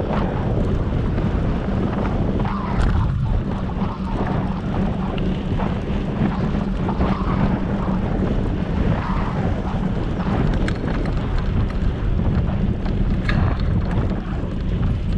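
Wind rushing over the microphone of a bike-mounted camera, with the steady rumble of a bicycle's tyres rolling on pavement. A couple of light knocks come through, about three seconds in and near the end.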